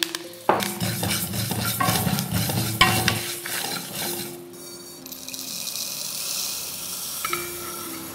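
Fenugreek seeds stirred in a small hot steel kadai as they dry-roast for pickle spice powder: a dense scraping rattle of seeds against metal for about three seconds, then a softer steady hiss.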